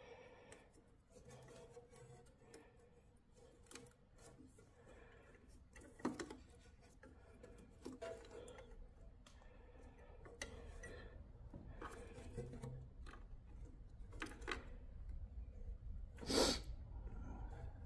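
Faint clicks, taps and rustling of insulated wires and metal ring terminals being handled on a generator's terminal studs, with one louder brief noise near the end.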